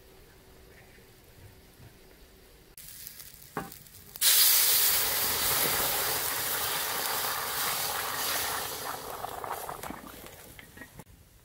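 A single click, then about four seconds in a loud sizzling hiss starts suddenly and slowly dies away over about six seconds.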